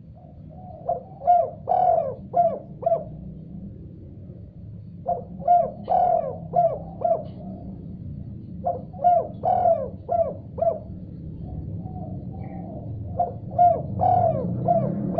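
Spotted dove cooing: four phrases of several short, quick coos each, a few seconds apart, over a steady low hum.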